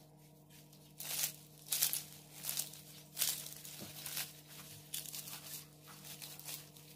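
Crisp, flaky layers of Uzbek katlama flatbread crackling and crinkling as fingers press, bend and tear the bread open. The crackles come in a series of short bursts from about a second in, over a faint steady hum.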